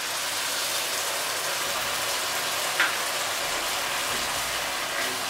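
Tomato, ginger, garlic and green chilli paste sizzling steadily in hot oil with fried onions in a steel kadai, with a brief knock about three seconds in.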